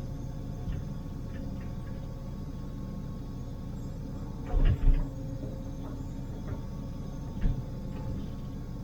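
Liebherr 904 wheeled excavator's diesel engine and hydraulics running steadily, heard from the cab, with a few sharp clunks about halfway through and a lighter one a few seconds later.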